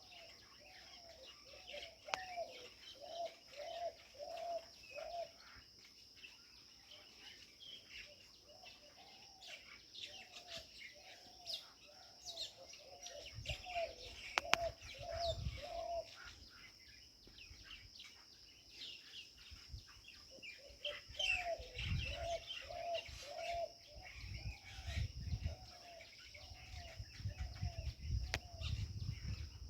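Birds calling: one bird repeats a short arched note about twice a second in runs of several seconds, with scattered higher chirps from other birds. Under them runs a steady high insect drone, and there are low rumbles in the second half.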